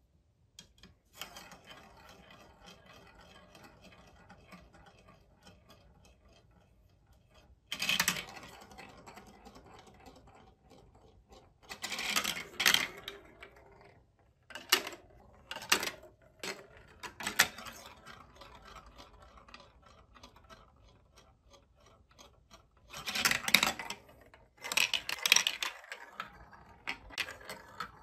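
Balls rolling along a plastic block marble-run track: a faint steady rolling rattle, broken by several short louder clatters as they drop through funnels and chutes, the loudest cluster near the end.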